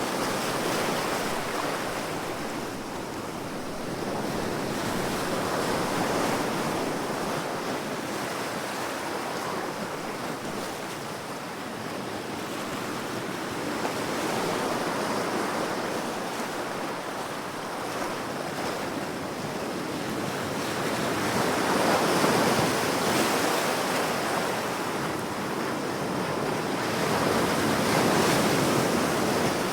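Sea waves washing in, a continuous rushing that swells and eases every six to eight seconds, with the strongest surge a little after two-thirds of the way through.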